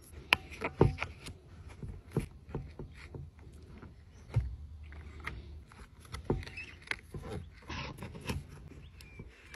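Handling noise of hands working wire and a stick against a plastic bucket: irregular clicks, taps and scrapes, a few of them sharper knocks.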